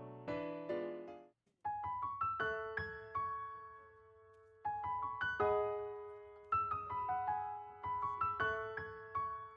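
Background piano music: soft phrases of single notes rising in arpeggios and dying away, with a brief pause about a second and a half in.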